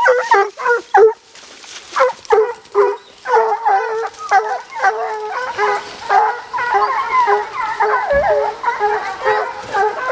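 Pack of bear hounds giving mouth close by in thick brush. At first there are separate chop barks, then from about three seconds in many dogs bay and bawl over one another.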